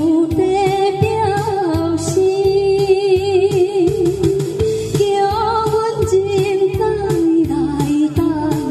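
A woman singing a Taiwanese Hokkien song live into a microphone over a recorded backing track with a steady beat, her held notes wavering with vibrato.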